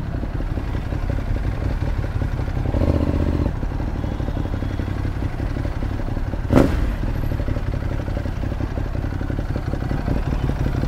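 Ducati Monster 821's V-twin engine running at low revs while the bike creeps over cobblestones in stopped traffic, briefly a little louder about three seconds in. A single sharp knock about six and a half seconds in.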